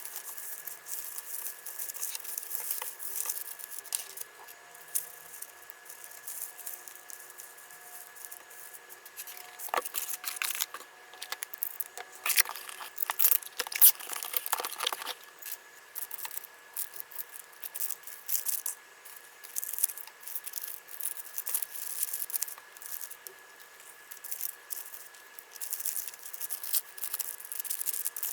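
Close-up rustling, crinkling and tearing of packaging as small orders are packed by hand, with light clicks and taps; the handling is busiest and loudest about ten to fifteen seconds in.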